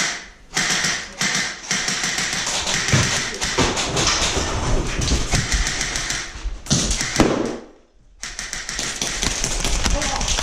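Dense, rapid tapping and clicking over a low rumble, typical of airsoft play picked up by a body-worn camera. It breaks off briefly about eight seconds in, then resumes.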